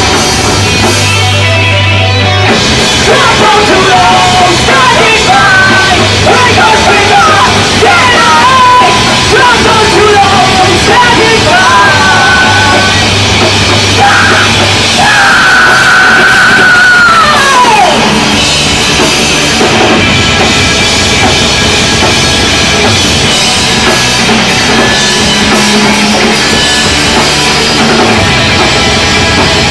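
Live rock band with two electric guitars, bass and drums playing loudly. A high wavering lead line runs through the first half, holds one high note and then slides steeply down just past halfway.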